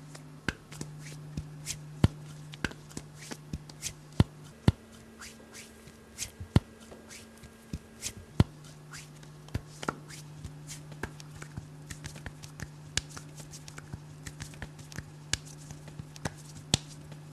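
Hands slapping and clapping in an elaborate handshake routine between two fighters. The sharp slaps come irregularly, one or two a second, some much louder than others, over a steady low hum.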